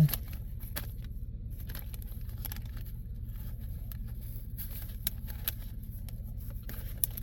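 Steady low rumble of a pickup truck cab, with light clicks and rustles of baseball cards being flipped through by hand.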